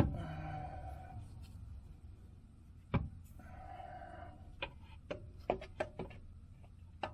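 Sharp clicks and knocks of tools and parts being handled during hands-on work on the car's starter and wiring: one at the start, a single knock about three seconds in, then a quick run of small clicks near the end.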